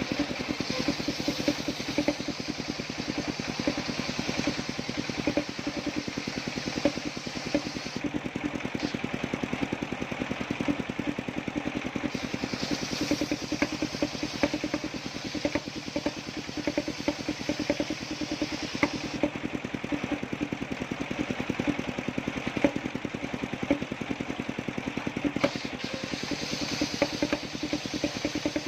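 Small engine of a homemade circular-saw sawmill running steadily with a rapid, even firing beat, and a high hiss that comes and goes in stretches of several seconds.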